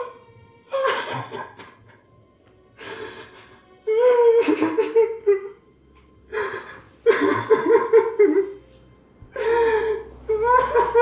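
A person sobbing in repeated bursts with gasping breaths in between, about six heaving sobs.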